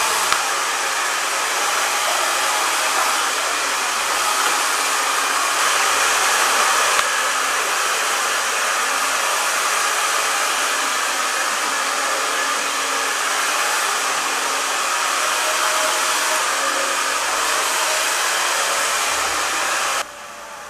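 Hand-held hair dryer running steadily, an even rush of blown air over a faint motor hum, cutting off suddenly near the end.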